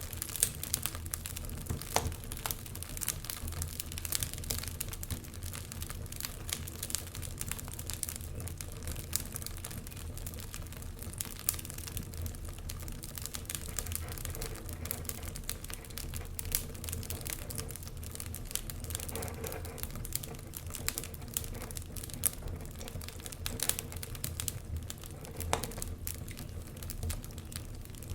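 Wood fire burning in a fireplace, crackling with a continuous run of small irregular pops and a few louder snaps, over a steady low rumble.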